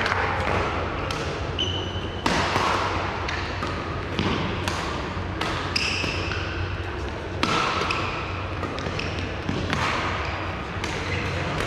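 Badminton rally: sharp racket strikes on the shuttlecock every second or two, with short high squeaks of court shoes on the floor over a steady murmur of the sports hall.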